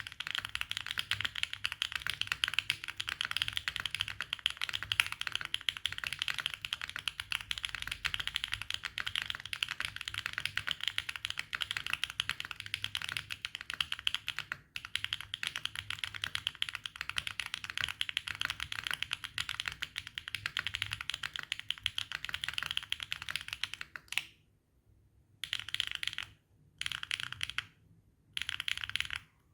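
Mechanical keyboard being typed on: HMX Sandstorm tactile switches in a Neo80 on an FR4 plate with no foam, with Swagkeys Classic Red keycaps. The keys clack in a fast, unbroken stream, then type in a few short bursts with pauses over the last five seconds.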